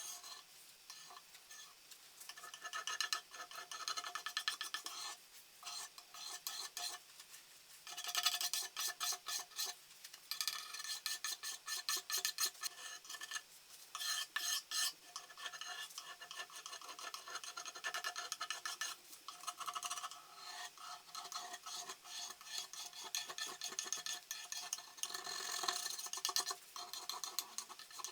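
Old varnish being rubbed and scraped off a wooden cash-register drawer by hand, in spells of quick rasping back-and-forth strokes with short pauses between them.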